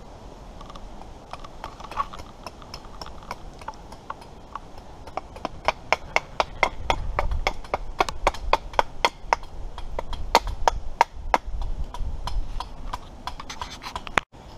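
Small hatchet chopping a piece of wood on a chopping stump: sharp knocking strikes, a few scattered at first, then a steady run of about four a second from about five seconds in.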